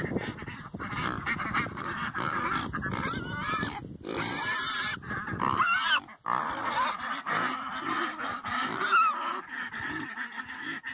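Pigs grunting and squealing, with farm fowl honking among them; the calls break off briefly twice, about four and six seconds in.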